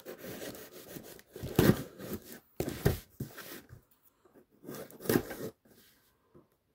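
A cardboard case being torn and pried open by hand: irregular bursts of tearing, rubbing and scraping cardboard, loudest about one and a half, three and five seconds in.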